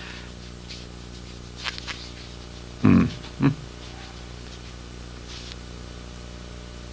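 Steady low electrical hum, with faint squeaks of a marker writing on a paper board. About three seconds in there are two short bursts of a man's voice.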